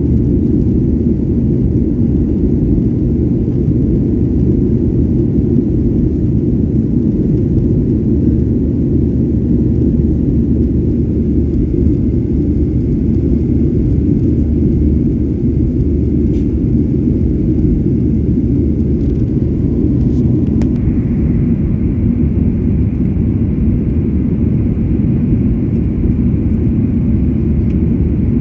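Steady low rumble of a Boeing 737-800 airliner's jet engines, heard inside the passenger cabin. A faint high whine joins about two-thirds of the way in.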